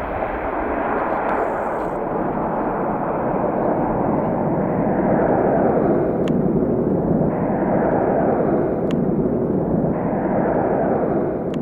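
Boeing 737-800's CFM56-7B jet engines at takeoff thrust, a steady heavy rumble as the airliner climbs away.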